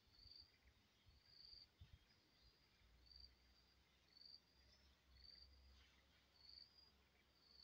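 Faint insect chirping: a short, high chirp repeated about once a second over near-silence. A low rumble joins about three seconds in.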